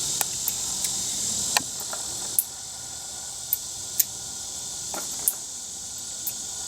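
Steady high chirring of crickets or other insects, with about ten light clicks scattered irregularly through it.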